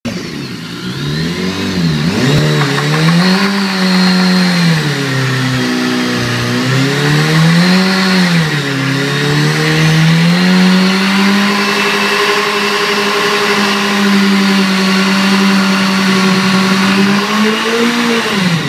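BMW HP4's 999 cc inline-four revving hard in a stationary burnout, the rear tyre spinning and smoking against the ground. The revs rise and fall twice, are then held high and steady, and drop away near the end.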